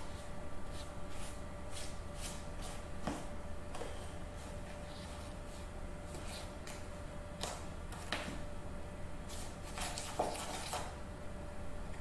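Metal spoon stirring dry, crumbly cookie dough in a plastic tub: irregular soft scrapes and light knocks of the spoon against the tub.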